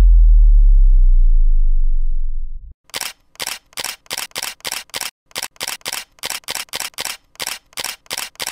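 A deep bass boom dying away over the first two and a half seconds, then a rapid, even run of camera shutter clicks, about three a second, laid in as a sound effect.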